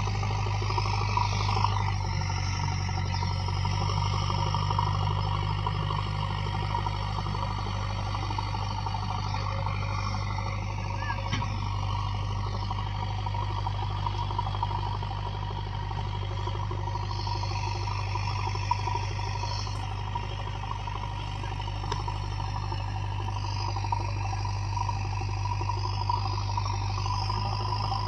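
JCB backhoe loader's diesel engine running steadily as the machine works its front loader bucket through soil.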